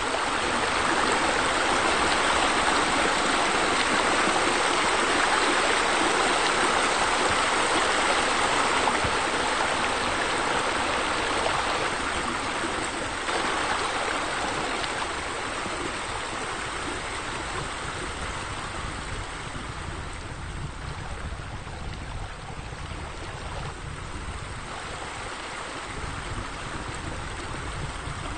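Steady rush of running, splashing water, easing off gradually over the second half.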